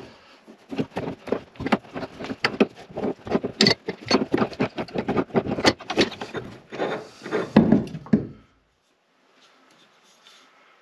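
Quick, irregular clicking and knocking of hand work on the under-sink fittings, stopping abruptly about eight seconds in.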